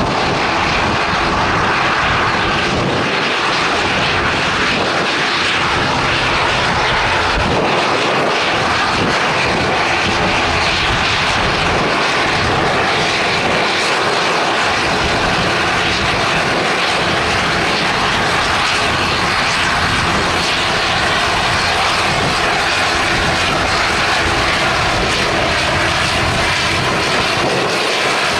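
Jet airliner engines running loud and steady, a continuous noise with faint engine tones held throughout.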